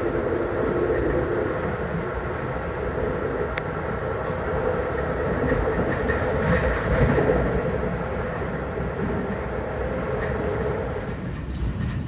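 Inside an older Metra bilevel gallery coach running at track speed, about 50 to 60 mph: a continuous rumble and rattle of wheels on rail under a steady hum. There is a single sharp tick a few seconds in, and the noise swells for a moment just past the middle.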